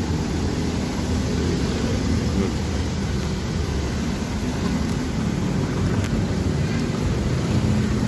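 Delivery truck's engine running close by: a steady low rumble.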